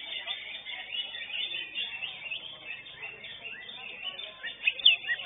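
Greater green leafbirds (cucak hijau) singing in a dense run of rapid chirps and whistles, with a few louder sweeping notes near the end.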